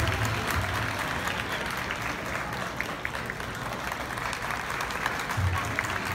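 Audience applauding over the dance music. The music's bass beat drops away about a second in and comes back near the end.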